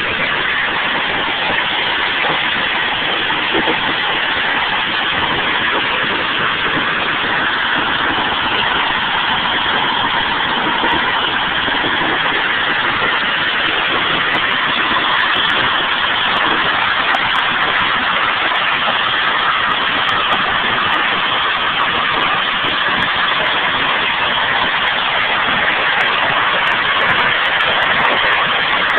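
Hail coming down hard: a loud, steady, dense rush of countless stones striking.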